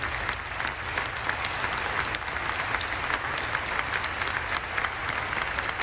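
Sustained applause from a large congregation, many hands clapping at once in a dense, even patter.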